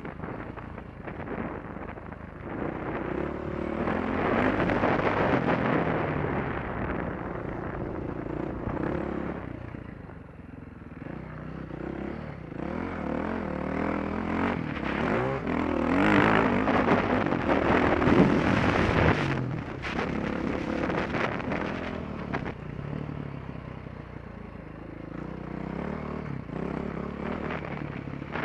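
Dirt bike engine revving up and down as the rider works the throttle around a motocross track. It is loudest about four to six seconds in and again around sixteen to nineteen seconds in, on the climb up a steep sandy hill. The microphone is on a helmet camera, so wind noise is mixed in.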